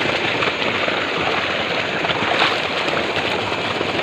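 Irrigation water gushing from a pump outlet and splashing down onto wet ground: a steady rushing spray.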